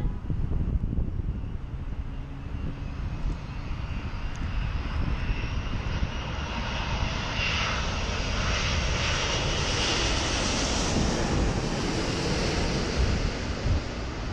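Large four-engine jet airliner flying low overhead. Its engine noise swells to a loud rush about eight seconds in, then carries on as a steady rumble.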